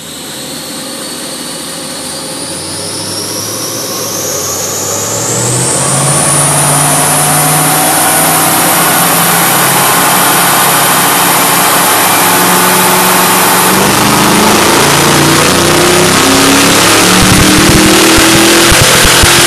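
6-litre V8 of an HDT Blue Meanie Commodore, with cold air intake and full exhaust, running at full load on a chassis dyno during a power run, its revs and loudness climbing steadily. A high whine rises with it and levels off into a steady tone about six seconds in.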